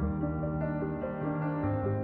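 Background music: soft sustained keyboard notes, with the chord changing about every half second.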